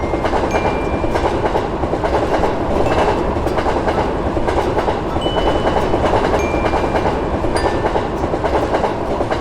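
A train running past, a steady rumble of its wheels on the rails.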